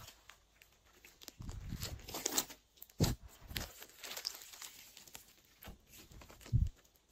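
Hands kneading and stretching glossy slime: irregular sticky crackles and squishes in short clusters, with brief pauses between them.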